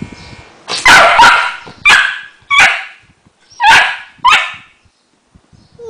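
West Highland White Terrier barking excitedly, six sharp loud barks in quick succession, set off by the mail carrier's arrival.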